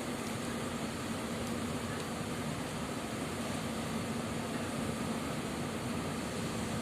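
Steady hiss of rain with a constant low hum underneath.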